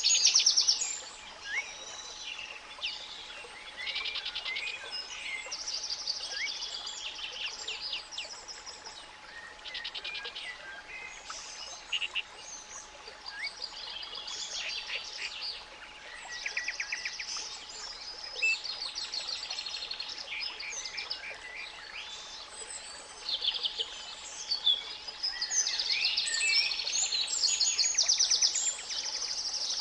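A chorus of spring songbirds, several singing at once in rapid trills and chirps, busiest near the start and again in the last few seconds. Under it runs a steady, faint 852 Hz pure tone and a soft hiss of masking noise.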